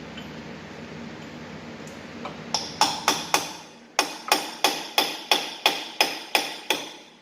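Hammer blows on metal, each ringing briefly: four quick strikes, a short pause, then a steady run of about nine more at roughly three a second.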